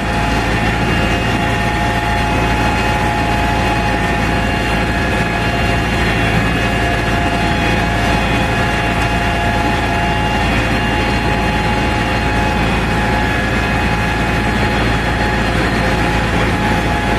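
IMT 558 tractor's diesel engine running steadily under load while pulling a plough through snow-covered soil, a constant drone with no change in pitch.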